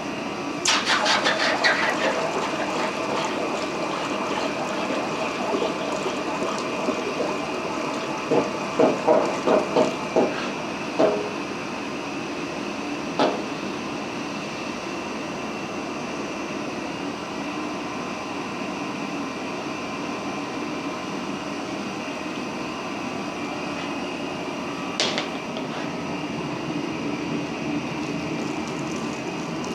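Water churning and running in a quench tank's recirculating jet over the steady noise of a gas forge, with bursts of metallic clanks from steel balls and tongs near the start and again around eight to eleven seconds in, and single knocks later.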